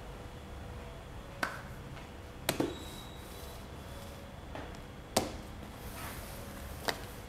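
A cardboard laptop box handled and turned on a marble tabletop: about five sharp knocks and taps from hands on the cardboard and the box edge meeting the table, over a low steady room hum.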